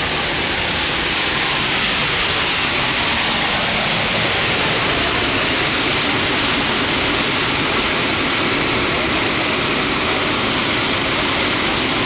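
Düden Waterfall's water falling and churning: a loud, steady rush of water, heard close up from the cave behind the falls.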